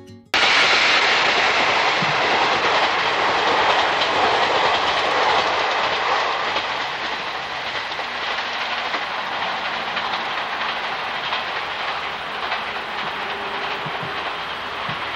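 A train running along the track close by, a loud rushing rumble with wheels clattering over the rails. It cuts in abruptly near the start and eases off a little after about six seconds.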